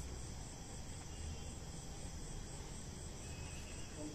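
Crickets chirring steadily, over a low background rumble.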